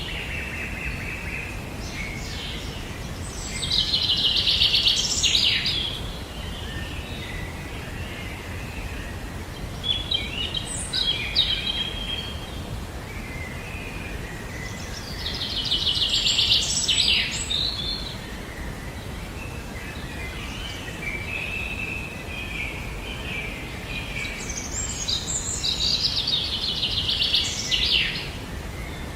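A bird singing: a fast trilled phrase repeated three times, about ten seconds apart, with softer chirps between, over a steady background hiss.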